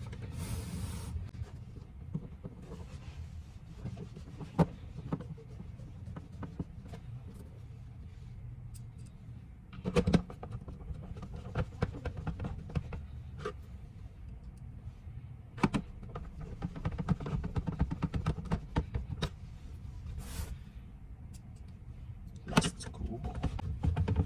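Screws being driven back into an APC UPS's case with a screwdriver, with a steady low handling noise and scattered sharp clicks and knocks of tool and plastic.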